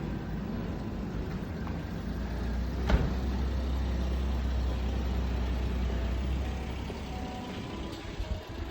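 Street ambience with a passing road vehicle's engine rumbling low. The rumble swells about two and a half seconds in and fades near the end, with a single sharp knock about three seconds in.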